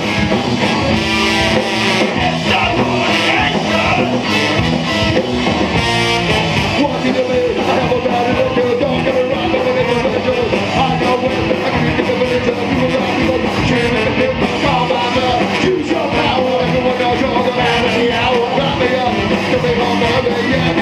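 Ska-punk band playing loud and fast live: electric guitars, bass and drums, with a singer on vocals, heard through a club's PA from within the crowd.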